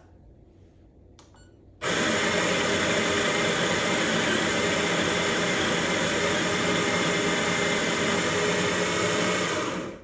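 Baratza Sette coffee grinder grinding beans: its motor starts about two seconds in, runs loud and steady with a dense whirring drone carrying several steady whining tones, and stops just before the end. It peaks at about 87 dB.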